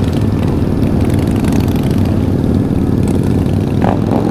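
Motorcycle engines running steadily at low road speed in a slow-moving group of bikes, the nearest being the rider's own Honda CBR500R parallel-twin.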